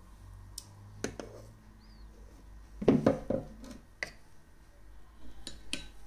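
A measuring cup knocking and clinking against a mixing bowl as sugar is tipped in: a few scattered short taps, with the loudest cluster about three seconds in. The electric mixer is not running.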